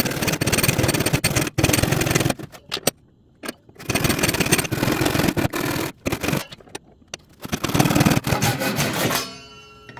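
Japanese pull saw cutting through a wooden board by hand: fast, rasping strokes in several spells with short pauses between.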